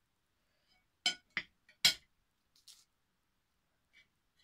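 Metal fork and spoon clinking against a ceramic plate while eating, three sharp clinks in quick succession about a second in, the last the loudest, then a couple of faint ones.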